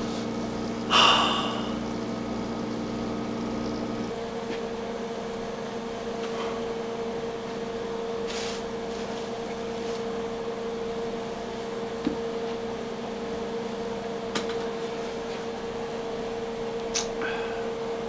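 Steady electric hum of the aquarium's air pump and water-current pump: one even tone, with a lower drone that drops out about four seconds in. A short hiss comes about a second in, and a few faint clicks follow.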